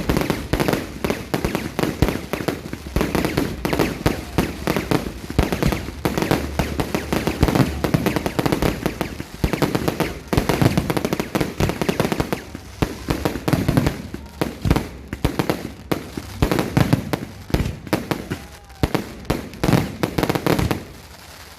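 Fireworks going off in a dense, irregular barrage of bangs and crackles, thinning out near the end.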